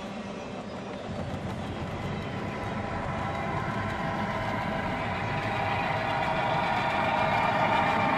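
HO scale model train running, with a steady diesel-engine sound that grows steadily louder.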